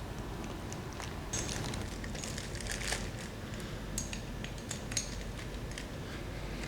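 Tapered plastic shelf sleeves being fitted onto the steel poles of a wire shelving rack: scattered small clicks and crackles with a few light metallic clinks, ending in one sharp knock.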